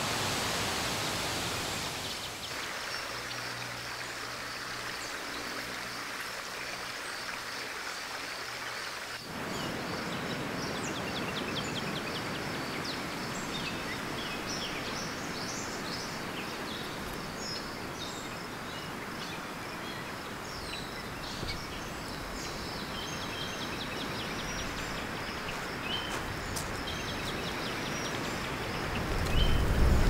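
Outdoor nature ambience: a steady rushing wash like running water, with many short bird chirps and calls from about ten seconds in, over a steady high whine. A faint low hum sits under it for the first several seconds, and a louder low rumble comes in right at the end.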